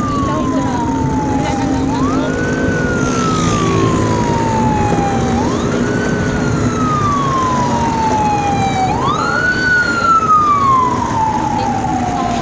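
A siren wailing in a slow repeating cycle, each a quick rise in pitch followed by a long falling glide, about four times; the one about nine seconds in is the loudest. Steady street-traffic hum runs beneath it.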